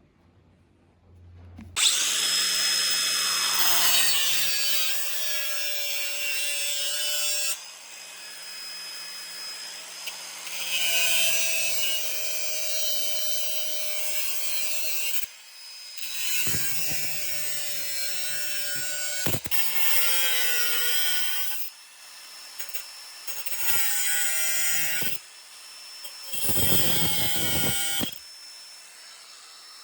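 Power tool working in about five loud bursts, its pitch sagging and recovering under load, then winding down near the end.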